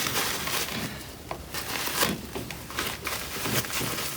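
Rustling and crinkling of a cut-open disposable diaper as its fluffy filling is pulled out by hand, with scattered light crackles.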